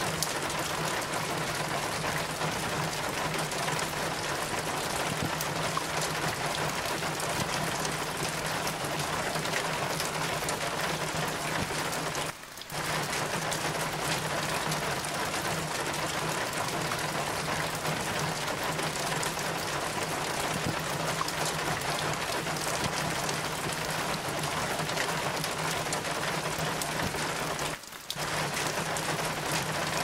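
Steady rain, with water running off the roof and dripping. It drops out for a moment twice, once about twelve seconds in and once near the end.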